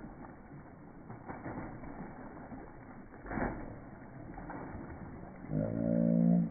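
Slowed-down audio of children jumping and splashing in a muddy puddle in rubber boots: low, muffled splashes. Near the end, a child's shout, stretched by the slow motion into a loud, low, drawn-out tone, lasts about a second.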